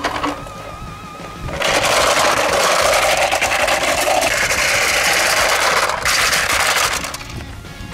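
Toy truck rolling down a playground roller slide, the slide's many rollers spinning under it in a loud continuous rattle that starts about a second and a half in and dies away about a second before the end.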